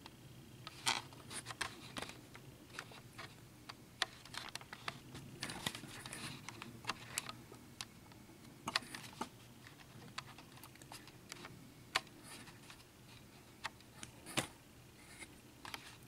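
Small irregular clicks and taps of tiny lock pins being picked up and set down on a work surface.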